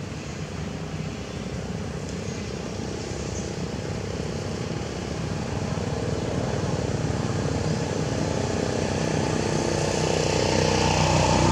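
A motor vehicle's engine running steadily and growing louder as it approaches.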